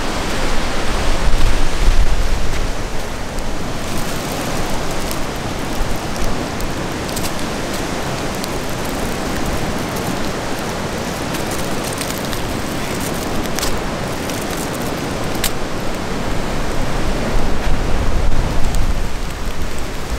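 Strong snowstorm wind blowing over the microphone: a steady rushing with heavy rumbling gusts in the first couple of seconds and again near the end. Scattered light ticks come through in the middle.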